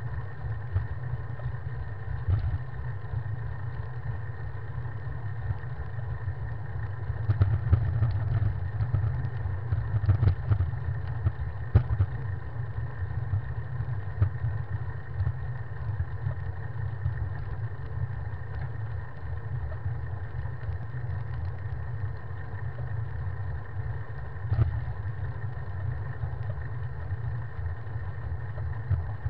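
Wind rumbling on the microphone of a handlebar-mounted camera on a moving bicycle, with road vibration. The rumble grows louder for a few seconds about a quarter of the way in, and a few brief knocks come from bumps in the lane.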